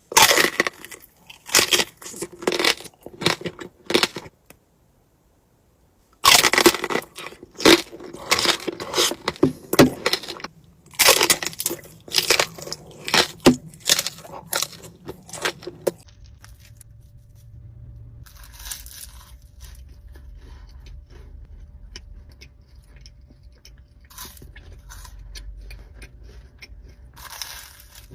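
Close-miked biting and chewing of crunchy desserts: loud crisp crunches in quick runs, stopping briefly about four seconds in and resuming. From about sixteen seconds on, softer, sparser chewing sounds over a low steady hum.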